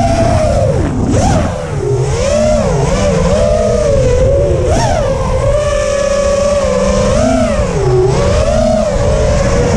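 FPV racing quadcopter's brushless motors (Cobra 2205 2300kv spinning HQProp 5x4x3 three-blade props) whining, the pitch rising and falling constantly with the throttle, with a sharp dip about a second in, over a low rumble.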